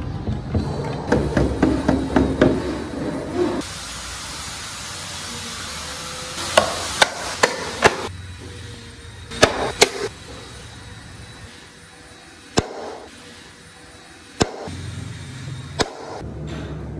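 A low rumble of the wooden model being handled on the table for the first few seconds. Then a series of sharp wooden clicks and taps, several in quick succession followed by a few single ones spaced out, as the doors and tailgate of a hand-carved wooden model SUV are opened and shut.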